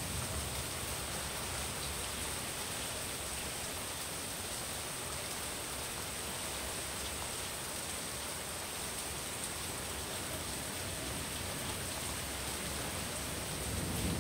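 Steady tropical rain falling, an even wash of noise at a constant level. Near the end a low rumble of thunder begins to build.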